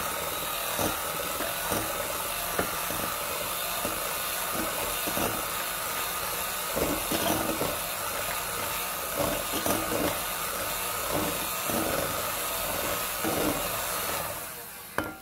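Electric hand mixer running steadily, its beaters churning softened butter in a glass bowl, with irregular knocks as the beaters strike the bowl. The motor whine fades out shortly before the end.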